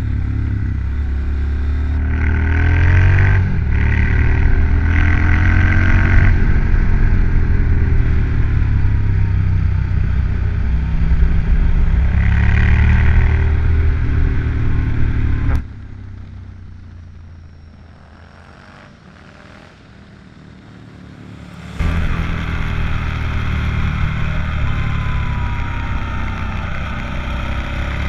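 Motorcycle engine running on the move, with road and wind noise, its pitch rising and falling with the throttle. About halfway through, the sound drops abruptly to a much quieter hum for about six seconds, then comes back loud just as suddenly.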